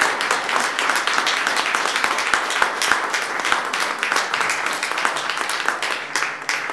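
Audience applauding, thinning to scattered claps near the end.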